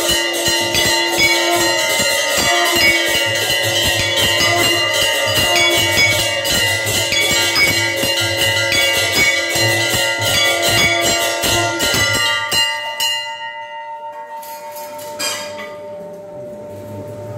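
A conch shell (shankha) blown in several long, steady blasts over a bell rung rapidly and continuously, as in temple arati. Both stop about 12 to 13 seconds in, leaving the bell's ring fading away.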